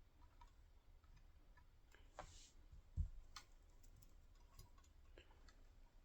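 Near silence with faint scattered clicks and light taps, and one soft low thump about three seconds in.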